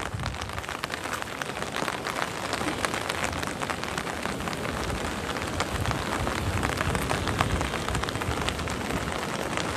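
Heavy rain pouring steadily, a dense hiss of rainfall with many sharp drop taps close by.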